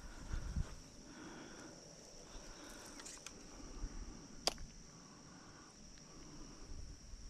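Insects droning steadily at a high pitch, with faint low handling noise. A single sharp click about four and a half seconds in.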